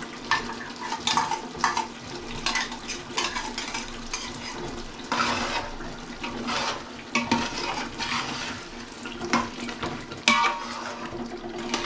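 A metal ladle clinks and scrapes against a bowl and a large metal cooking pot as tomato purée is scraped in and stirred into the cooking chicken masala. The clinks come often and irregularly, over a steady low hum.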